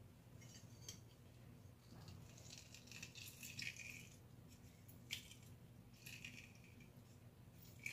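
Faint rustling and a couple of sharp clicks from a metal hand-press lemon squeezer being squeezed, with lemon juice trickling into the pot; overall very quiet.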